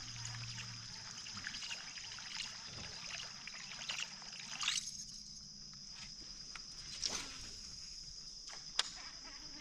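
Water trickling and dripping lightly around a fishing kayak, with scattered small ticks and a few sharper clicks or drips: a little under halfway, about seven seconds in, and near the end.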